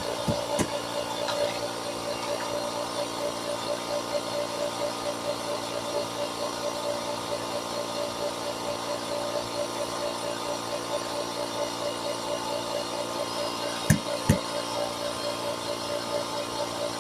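Air compressor running steadily with an even rapid pulsing, inflating a freshly mounted tire up toward about 18 psi. Two sharp clicks come close together about fourteen seconds in.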